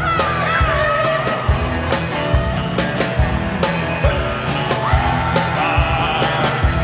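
Rock music with a steady drum beat and a wavering lead line over it.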